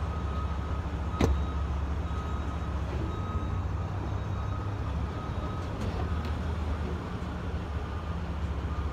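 Pickup truck engine running steadily, a low even hum, as it is manoeuvred to hook up to a gooseneck trailer. A faint high beep tone sounds on and off, and there is one sharp click a little over a second in.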